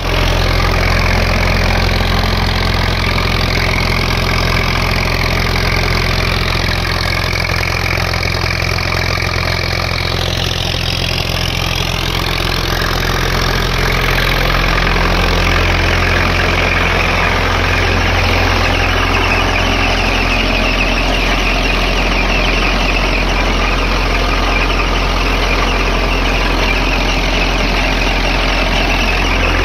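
DarshTrek DT5019 tractor's diesel engine running steadily with a constant drone while driving a PTO generator.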